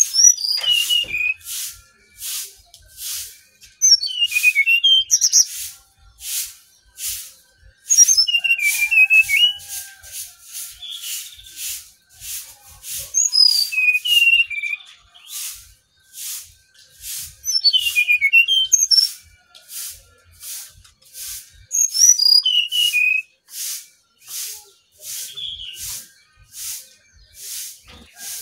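Brown-chested jungle flycatcher singing: short phrases of quick, high whistled notes sliding up and down, repeated every few seconds. Under the song runs a steady high ticking of about two clicks a second.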